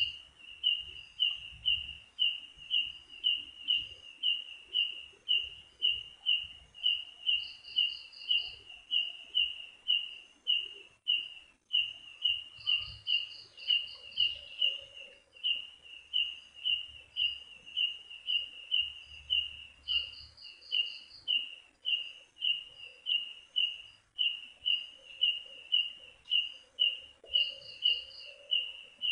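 Night-time animal calls: a short chirp repeated steadily a little over twice a second, with a higher, rapid pulsed call lasting about a second joining in every five to eight seconds.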